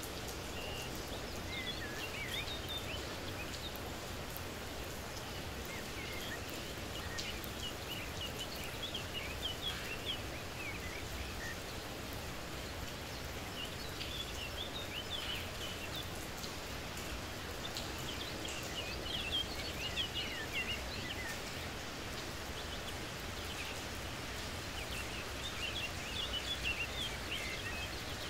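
Steady outdoor hiss of light rain, with birds chirping in quick clusters that come and go every few seconds.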